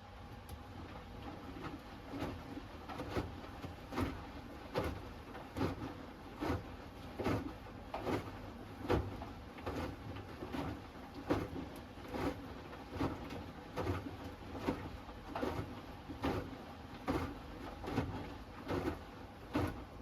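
Hoover Axi 10 kg front-loading washing machine tumbling a wash: laundry lifted and dropping in the turning drum with a soft thump about every 0.8 seconds. The rhythm starts about a second in and stops near the end as the drum pauses.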